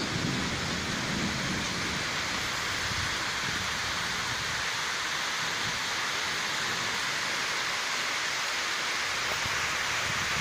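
Heavy rain falling steadily on the roofs, a dense, even hiss that holds its level throughout.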